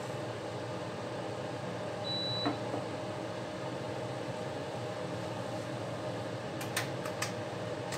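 Steady hum of a fan-like kitchen appliance. A short high tone sounds about two seconds in, and a few light clicks come near the end.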